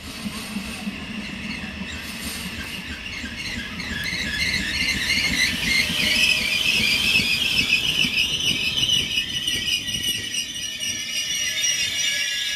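Trenitalia double-deck regional train pulling into the station, a low rumble under a high, multi-pitched squeal of its brakes and wheels. The squeal grows louder about a third of the way in as the coaches draw alongside.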